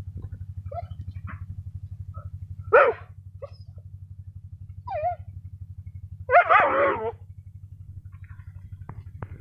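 A dog vocalising three times: a short bark about three seconds in, a brief whining yelp near five seconds, and a longer, wavering bark-whine at about six and a half seconds. Underneath runs a steady, low, rhythmic mechanical chugging.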